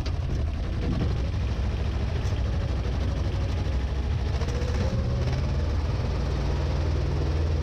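Hako 1900 DA compact tractor's diesel engine running steadily under load as it pushes a front-loader manure scraper through muck.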